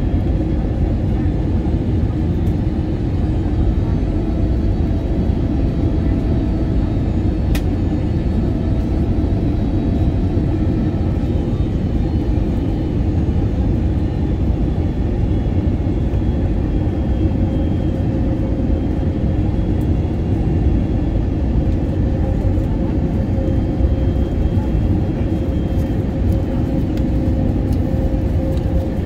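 Airbus A320neo cabin noise heard from a forward window seat: a steady rumble with a faint, even whine from the CFM LEAP-1A engines.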